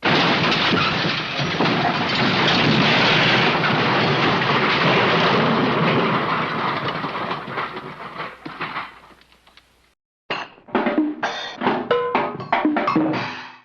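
A dense rushing noise that fades away over about nine seconds. After a short silence comes a quick run of sharp drum-like hits.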